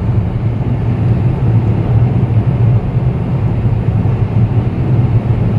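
Steady low rumble of tyre and wind noise inside a car cabin while cruising fast on an open highway.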